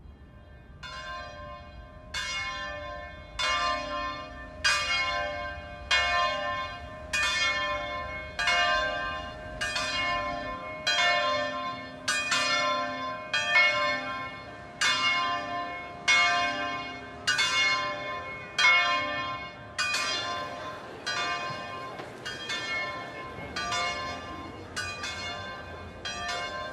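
Church bells ringing, starting about a second in: a steady run of strikes a little more than one a second, each ringing on into the next.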